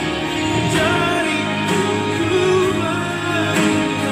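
Worship song playing, with a singing voice over instrumental accompaniment.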